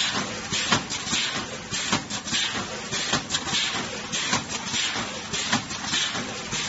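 420W vertical form-fill-seal snack packaging machine running: a quick, uneven run of mechanical clicks and clacks over a steady rustling hiss of moving packaging film.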